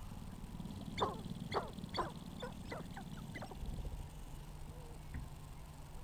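Sharp-tailed grouse calling on the lek: a run of about seven sharp, steeply falling yelps about a second in, the first three loudest, then coming quicker and fainter. A low steady rumble runs underneath.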